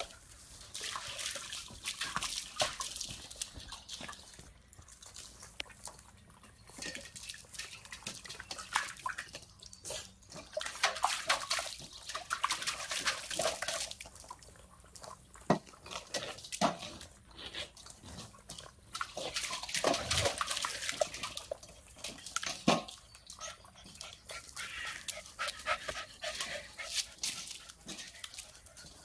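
Puppies playing, giving short dog vocal sounds, with water splashing and scuffling as they paw at a metal water bowl on wet concrete.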